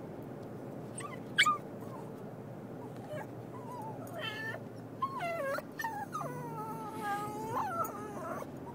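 A dog whining and crying in a run of drawn-out whimpers that rise and fall in pitch, with a short sharp yelp about a second in. It is an anxious dog's distress crying, heard inside a moving car over its steady low hum.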